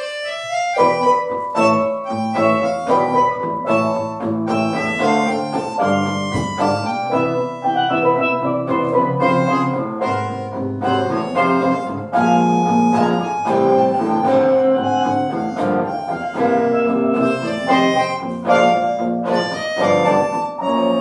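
Live instrumental music from a small band: a busy tune of many short, quick notes with a fuller chord underneath.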